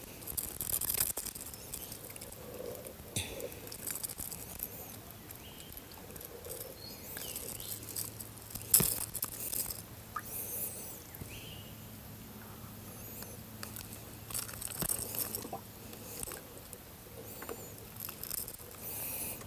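Fishing tackle being handled in a small boat while a crab is taken off a lure with a lip grip: scattered clicks and rustles of rod, reel and grip, with one sharp click about nine seconds in.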